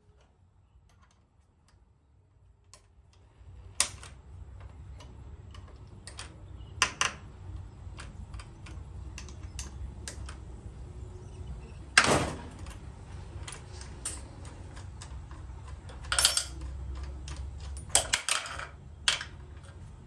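Scattered clicks and metallic knocks of parts and tools being handled at a miter saw's blade arbor, the loudest a sharp knock about twelve seconds in. A steady low hum sets in a few seconds in.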